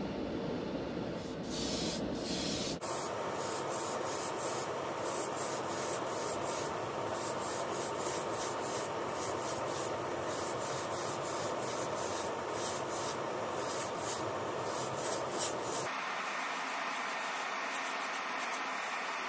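Steady hiss of an airbrush spraying acrylic paint onto a die-cast toy body in a spray booth, with a faint steady tone underneath. The sound changes character abruptly twice, about three seconds in and a few seconds before the end.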